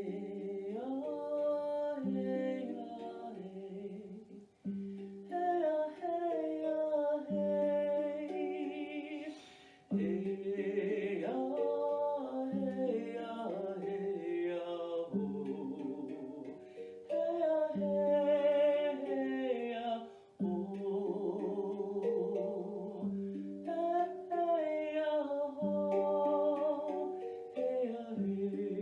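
Wordless spirit singing in long, gliding phrases over the ringing notes of a handpan.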